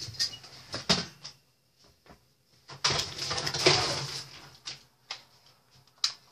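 Plastic airsoft guns being handled: a few sharp clicks and knocks, with a stretch of rustling in the middle.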